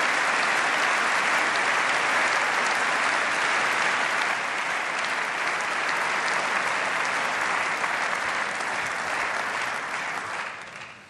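Large seated audience applauding, a dense steady clapping that dies away near the end.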